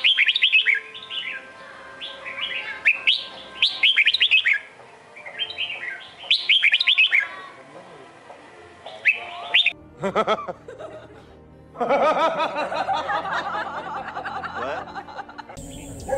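Red-whiskered bulbul song: bursts of quick, falling whistled phrases. After about ten seconds the singing gives way to a denser, lower-pitched sound.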